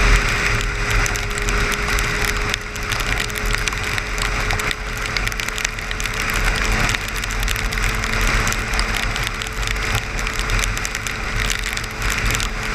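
Road noise inside a car driving on a highway: a steady low rumble and tyre hiss with a faint steady hum, and many small ticks scattered throughout.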